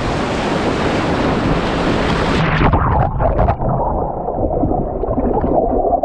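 Breaking surf rushing loudly, then about two and a half seconds in the sound suddenly turns muffled and gurgling as the microphone goes under the water.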